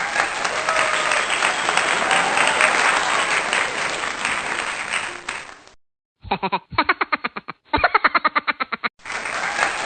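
Crowd applause and cheering that cuts off suddenly about six seconds in; after a short gap come three quick bursts of a fast, pitched, pulsing sound effect, and the applause returns near the end.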